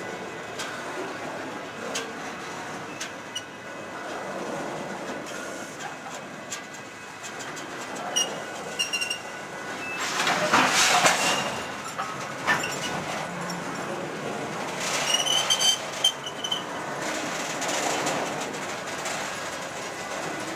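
Freight train cars rolling on the rails, their wheels clicking over rail joints. The wheels give short high-pitched squeals about eight seconds in and again near fifteen seconds. The loudest rush of rolling noise comes around ten to eleven seconds.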